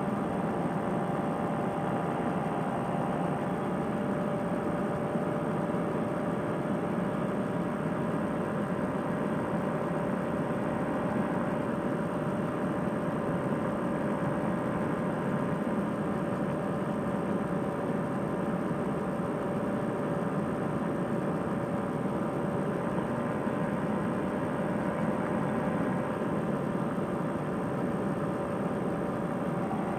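Fresh Breeze Monster paramotor's engine and propeller running steadily in cruising flight: an even drone with a constant humming tone that does not change.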